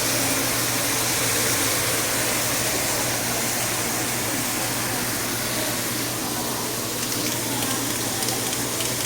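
Steak sizzling in a frying pan of hot butter: a steady, even frying hiss, with a low steady hum underneath.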